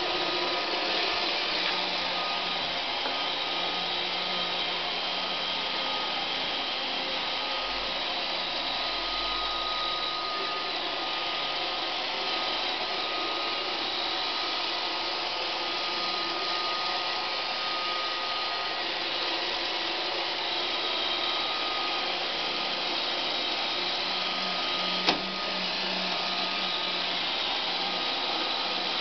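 Roomba robot vacuum running steadily, a constant whirring with a thin high whine, with a single sharp knock about 25 seconds in.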